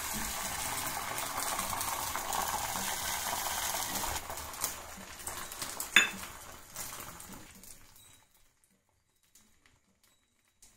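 Omelet egg batter sizzling in hot oil in a frying pan, strong at first and dying away over several seconds as the egg sets, with a single sharp metal clink about six seconds in.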